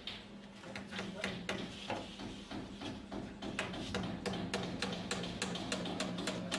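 Claw hammer driving a nail through plasterboard into an overhead timber joist: a quick run of sharp taps, several a second, coming faster after about three and a half seconds. A steady low hum runs underneath.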